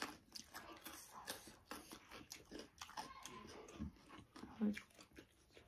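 Faint close-up eating noises: soft chewing and mouth sounds with scattered small clicks, and a couple of short low murmurs late on.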